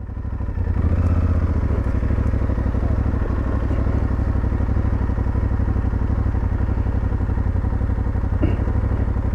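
Aprilia Tuareg 660's parallel-twin engine idling steadily with the bike stopped.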